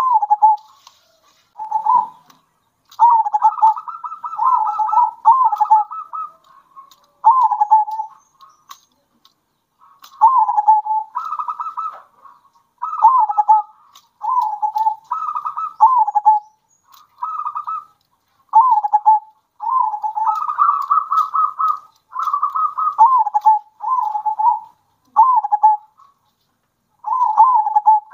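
Zebra doves (perkutut) in full song: phrase after phrase of staccato coos, each dipping in pitch at its end, with short pauses between phrases.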